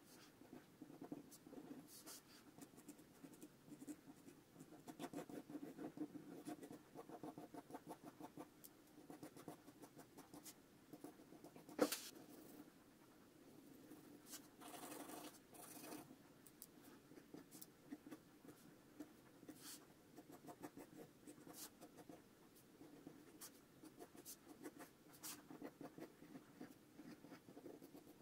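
Pencil sketching on paper: quiet, irregular scratching strokes, with a longer rubbing stretch of shading about fifteen seconds in. One sharp tap about twelve seconds in is the loudest sound.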